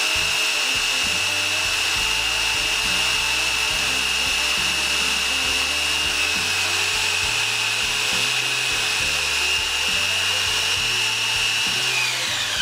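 Parkside PDSSE 450 C3 corded 450 W electric impact wrench running free with no load on the socket: a steady, high motor whine from its brushed motor. About twelve seconds in the trigger is let go and the whine falls in pitch as the motor spins down.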